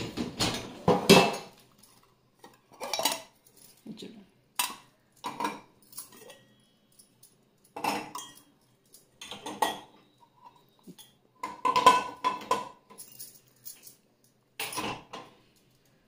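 Stainless steel tumblers, cups and bowls clinking against each other and against a dishwasher's wire rack as they are set in one by one: irregular separate clanks, some with a short metallic ring.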